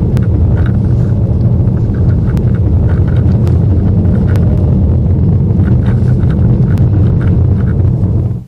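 Steady low road rumble inside a BMW F30-series car's cabin, with scattered light clicks and creaks from loose interior trim. It cuts off abruptly near the end.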